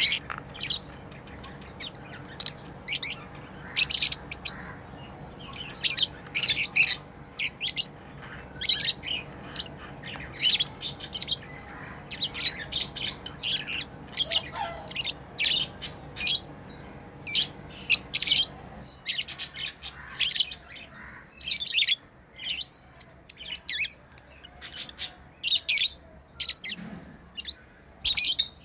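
Pet lovebirds chirping: a rapid, continuous run of short, shrill calls, several birds overlapping. A steady low hum underneath stops about two-thirds of the way through.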